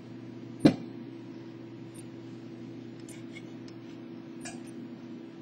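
A single sharp metallic knock about a second in, then a few faint clicks and taps, over a steady low hum: a PC motherboard being slid out of its metal case and handled.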